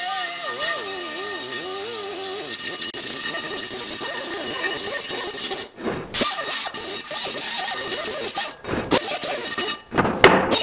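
Small right-angle air grinder with an abrasive disc grinding rust off the inside of a brake drum: a high hissing whine whose pitch wavers as the disc bears on the metal. It stops briefly three times in the second half.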